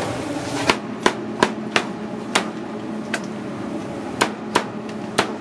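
Cleaver chopping roast pork on a wooden cutting board: about nine sharp, unevenly spaced chops, the first one under a second in.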